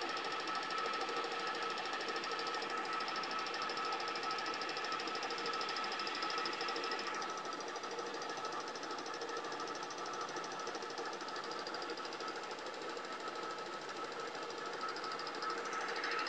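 1K62 screw-cutting lathe running steadily at low speed, a steady gear whine with a fine rapid clatter from the headstock, while a hand die in its stock cuts a thread on the turning part.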